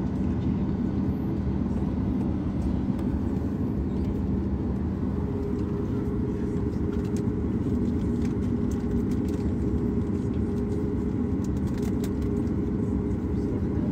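Steady low drone with a constant hum, heard inside the cabin of a Boeing 737 MAX 9 standing still while a de-icing truck works alongside the wing.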